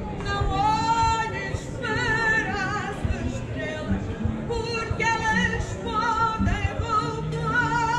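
A woman singing fado live, a high voice with strong vibrato and ornamented, wavering melodic lines, over instrumental accompaniment with short low plucked notes.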